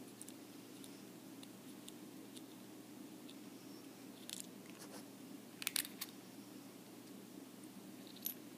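Faint clicks and taps of small metal parts being handled as the magnetic switch of an aluminium mechanical vape mod is taken apart, with a couple of sharper clicks a little over halfway through and one more near the end. A steady low hum runs underneath.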